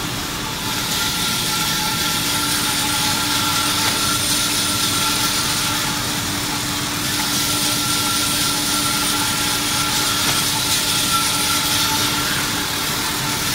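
Automatic band saw for paper logs running: a steady mechanical hum and hiss with several held tones, swelling slightly a second in and again around eight seconds in.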